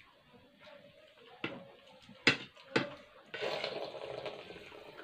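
Spoons knocking sharply against soup bowls three times, then a longer wet slurping of chicken soup that fades out.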